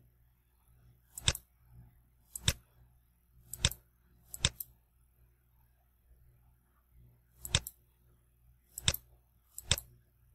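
Computer mouse button clicking seven times at uneven intervals, each click a quick double tick of press and release.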